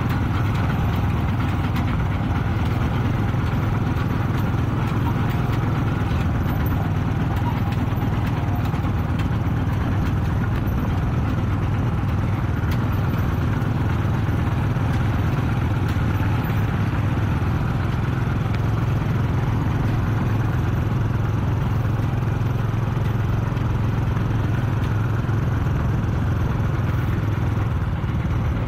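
Kubota RT-120 Plus single-cylinder diesel tractor engine running steadily under load while hauling a loaded trailer, a constant low engine drone with no change in speed.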